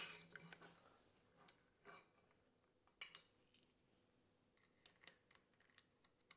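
Near silence broken by a few faint metallic clicks and taps, the sharpest about three seconds in: an Allen key working the clamp bolt of a drop-bar brake lever.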